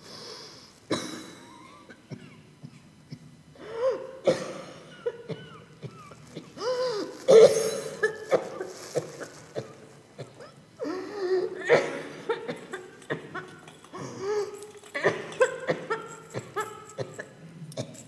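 Actors coughing, wheezing and laughing in a string of short vocal bursts, some breathy and some with wavering pitch.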